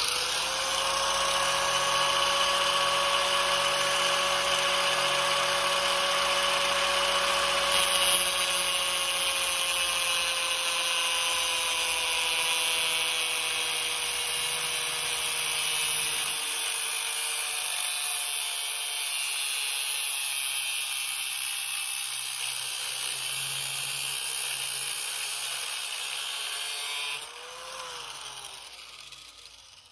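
Angle grinder with a cut-off wheel cutting through a metal pipe clamped in a bench vise, running steadily with its whine slowly sinking in pitch as it bears down. It is switched off about 27 seconds in and winds down.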